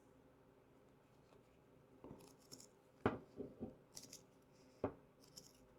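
Heavy-duty scissors cutting off a strip of material: after a quiet start, a run of sharp snips from about two seconds in.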